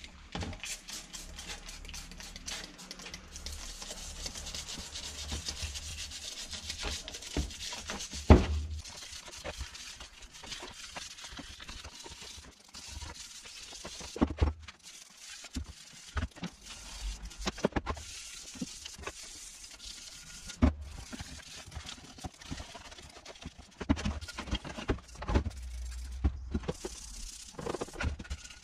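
A brush scrubbing the aluminium crankcase of a Yamaha RXS 115 two-stroke engine in a tub of degreaser: quick, steady hissing scrubbing strokes with occasional sharp knocks, the loudest about eight seconds in.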